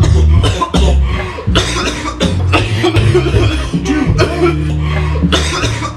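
A person coughing repeatedly in harsh, hacking fits, over background music with a steady bass line.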